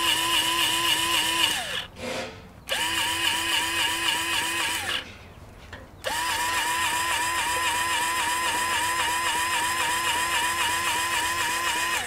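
Electric LubeShuttle grease gun running in three bursts, pumping grease into a pivot's grease fitting. Its motor gives a steady whine that pulses rapidly with the pump's strokes. It stops about a second and a half in, runs again for about two seconds, and starts once more about six seconds in.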